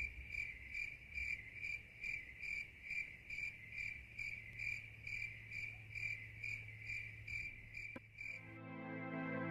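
Cricket chirping steadily, about two even chirps a second, as night-time ambience. The chirping stops near the end as a low sustained tone fades in.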